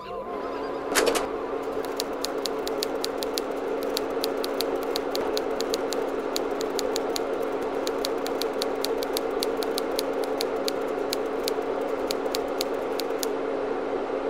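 Typewriter typing in quick, uneven keystrokes over a steady low hum, with one heavier strike about a second in. The keystrokes stop about a second before the end.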